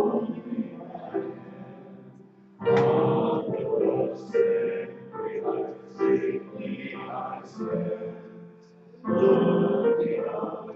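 Voices singing a hymn together to piano accompaniment, in held lines with short breaks between phrases, about two and a half seconds in and again near the end.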